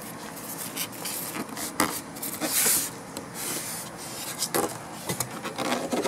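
Packing material scraping and rubbing in a cardboard box as the white top insert is lifted out: irregular scuffs and rustles, loudest in a hissy rub about two and a half seconds in.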